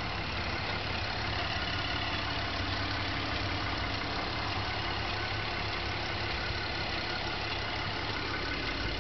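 2008 Cadillac CTS V6 engine idling steadily, heard from above the open engine bay.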